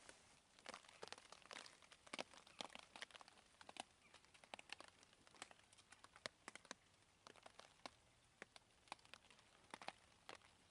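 Faint, irregular crackles and small snaps of dry twigs and leaf litter, a few each second.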